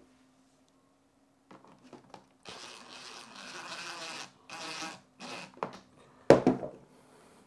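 DeWalt cordless drill/driver running in several short bursts as it drives screws in, the last burst, about six seconds in, the loudest.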